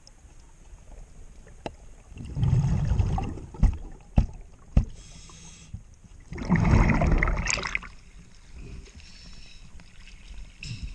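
Diver breathing through a scuba regulator: hissing inhalations and two loud rushes of exhaled bubbles, with three sharp knocks between them.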